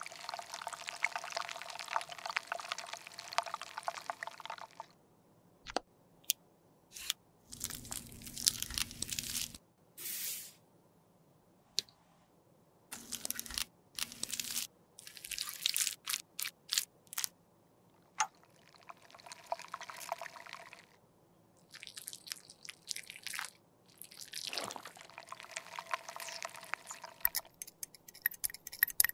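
A series of short, close-miked handling sounds of lipstick being reworked: lipstick melting in glass beakers on a hot plate, a metal spatula scraping soft red lipstick, and a rod stirring melted lipstick in a glass beaker.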